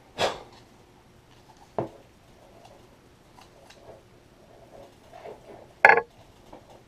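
Hands working on Bose QuietComfort headphones and their ear-cushion parts: three sharp plastic clicks, the loudest near the end, with softer taps and rustles between them.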